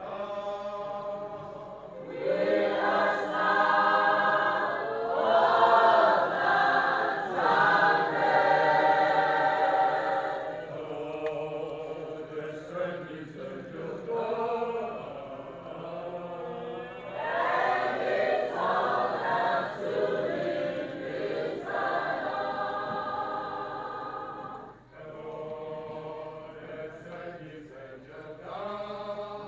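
Church choir singing a hymn in harmony, with long held notes; it swells louder about two seconds in.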